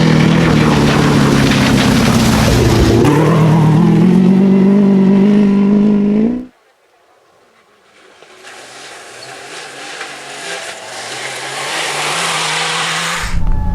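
Rally competitors' engines at full throttle: one runs loud with its pitch dipping and climbing again about three seconds in, then cuts off abruptly about halfway. Next comes a rushing hiss with a faint engine that grows steadily louder as a vehicle approaches, and near the end a loud engine starts abruptly.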